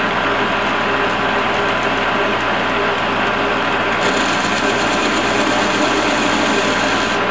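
Geared-head metal lathe running steadily with a constant gear whine as it turns a steel bar in the chuck. About four seconds in, a high hiss joins as the tool cuts a chamfer on the bar's edge.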